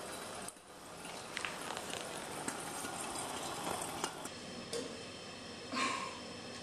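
Pork belly slices sizzling in a hot frying pan: a steady hiss with scattered crackles and pops, and a brief louder burst near the end.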